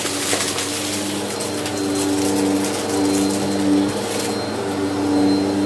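Bissell CleanView upright vacuum running on carpet, its motor hum dipping and returning again and again as it is pushed back and forth, with light crunching as it picks up scattered small debris.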